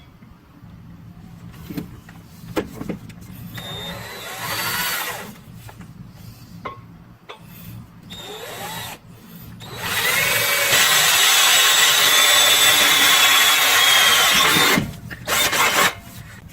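Power drill boring a hole through the metal spring perch for the air-spring's air line. It runs in a couple of short bursts, then in one longer, louder run of about five seconds starting some ten seconds in, and ends with one more short burst.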